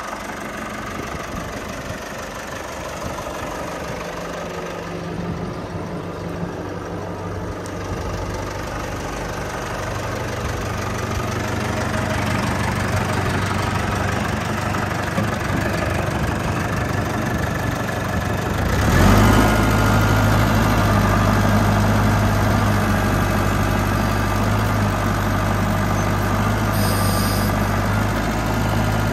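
Ford 2120 compact tractor's three-cylinder diesel engine running steadily; about 19 seconds in it gets louder and stays at the higher level.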